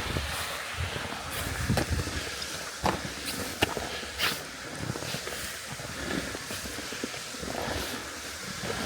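Footsteps in snow from trekking shoes fitted with chain spikes: an uneven run of steps, each a soft crunch or thump, some with a sharper click.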